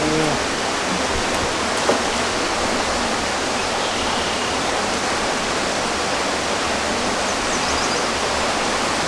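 Steady, even rushing noise throughout, with one sharp click about two seconds in.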